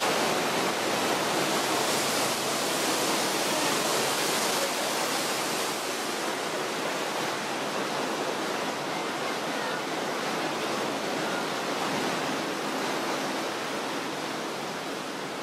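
Steady rush of river water churned and swept past a moving tour boat, an even hiss without tones, slightly louder in the first few seconds.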